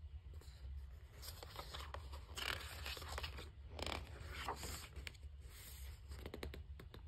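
Paper pages of a picture book being turned and handled: several faint swishes and rustles, with a few light clicks near the end.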